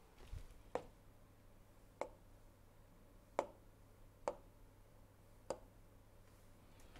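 Five faint, sharp taps at irregular intervals about a second apart: taps on the surface of an interactive display board. A faint, low, steady hum runs underneath.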